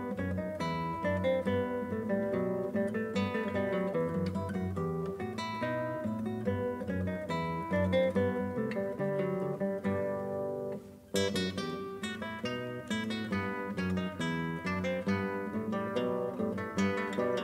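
Acoustic guitar music: a steady run of plucked notes and strummed chords, with a short break about two-thirds of the way through before a new phrase begins.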